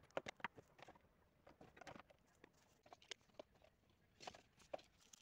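Faint, scattered clicks and taps of small plastic Schleich toy pieces being handled and set down by hand.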